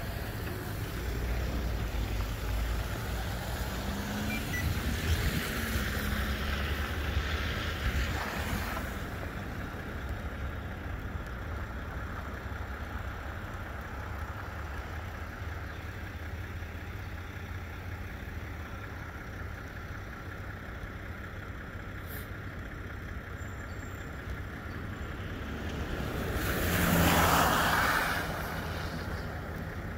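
Road traffic passing on a snow-covered road: tyres swishing through slush over a steady low rumble. A box truck passing close near the end is the loudest moment, swelling and fading over about two seconds.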